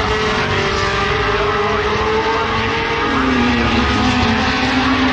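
Historic Formula 1 cars with Cosworth DFV V8 engines racing past at speed, several engines running at once. Their notes shift in pitch as the cars pass and change gear, with a fresh note rising about three seconds in.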